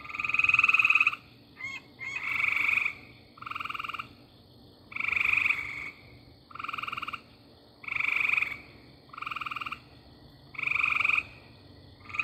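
Frog calling: a run of short, rapidly pulsed trills, each about half a second to a second long, repeated about every second and a half, with louder and fainter calls coming in turn.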